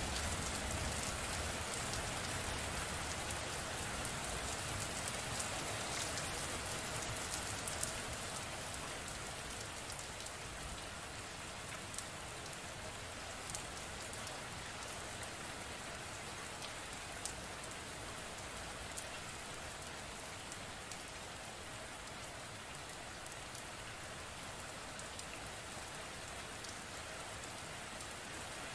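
Steady rain falling on a surface: an even hiss with now and then a sharper drop hit. A low rumble dies away about a second in, and the rain eases slightly over the first ten seconds, then holds steady.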